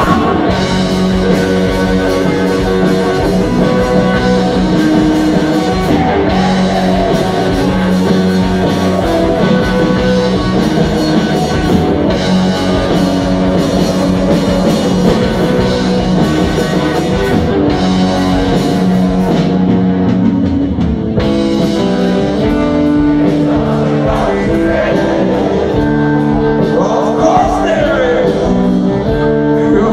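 Rock band playing live: electric guitars and drum kit with a male singer, heard from the crowd.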